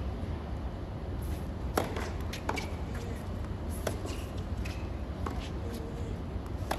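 Tennis ball struck by rackets and bouncing on a hard court during play: a string of sharp knocks, the loudest about two seconds in, over a steady low rumble from the arena.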